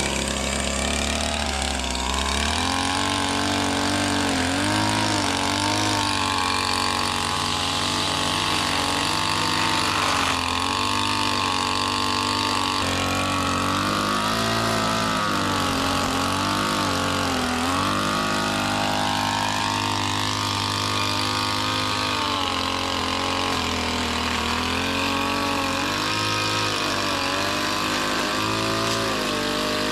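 A small engine running steadily, its pitch wavering up and down as the load changes, starting abruptly at the beginning.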